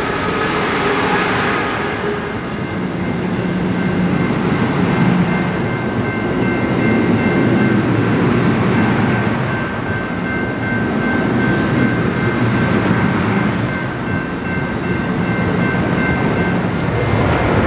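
A train rolling past, a steady rumble of wheels on rail that swells and eases about every four seconds, with a thin, steady high whine over it.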